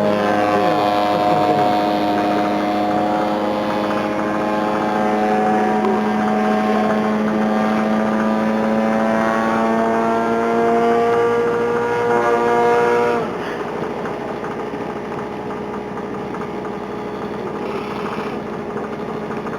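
Large radio-controlled airplane's engine and propeller running hard, a steady drone that drifts slightly up and down in pitch as the plane flies. About thirteen seconds in it drops suddenly to a quieter, lower drone.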